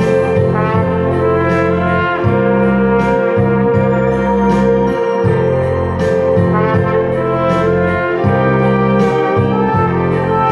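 Trumpet playing a slow melody in sustained notes over a recorded accompaniment with a low bass line.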